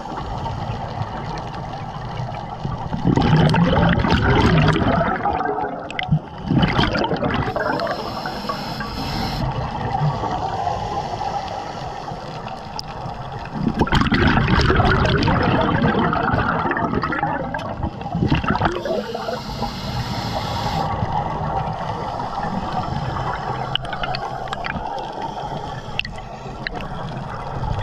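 Underwater sound of a scuba diver's exhaled bubbles rushing and gurgling out of the regulator. It comes in surges about ten seconds apart, over a steady underwater rush.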